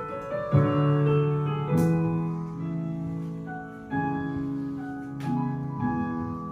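Slow piano music on a keyboard: soft, sustained chords, a new chord struck about every one to two seconds.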